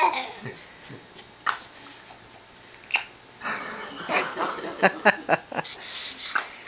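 Baby's little vocal noises: a short falling squeal at the start, then short breathy sounds at irregular intervals, thickest in the second half.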